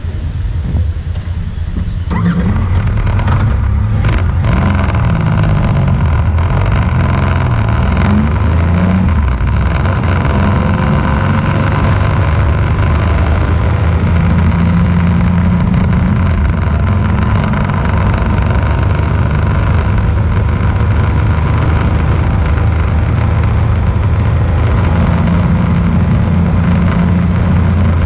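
A road vehicle's engine running as it drives along a winding mountain road. The engine pitch rises and falls several times in the first ten seconds or so, then holds mostly steady at cruising speed, under a steady rush of wind and road noise.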